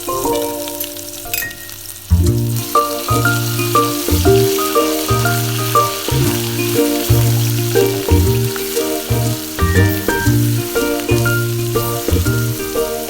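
Food sizzling steadily in hot oil, over background music that has a rhythmic bass line coming in about two seconds in.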